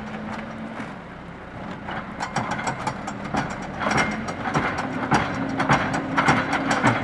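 Backhoe loader's diesel engine running while its boom and bucket linkage clank and rattle. The rattling gets busier from about two seconds in.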